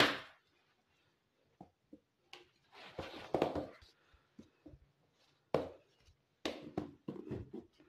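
Dry homemade breadcrumbs tipped from a spoon into a plastic food container, starting with a sharp knock and a short rush of crumbs. About three seconds in comes a stretch of rustling as the container is handled to settle the crumbs. Near the end a plastic lid is pressed on with a few sharp clicks and knocks as it snaps shut.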